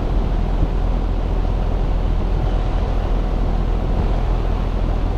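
Rheem Prestige outdoor air-conditioning unit running, its condenser fan and compressor giving a steady low hum under an even rush of air. Its ECM condenser fan motor is suspected of hanging up and slowing intermittently.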